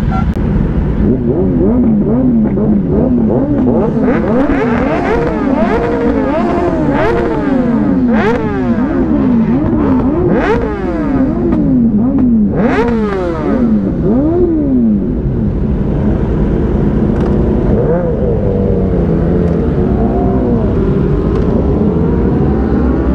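Superbike engine revving up and down again and again in quick swells, about one or two a second, then running more evenly for the last several seconds, over a steady low rush.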